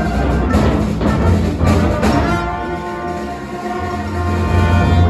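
Symphony orchestra of strings, woodwinds, brass including two tubas, and percussion playing live, heard from the audience. About halfway through it settles into held chords over a strong bass.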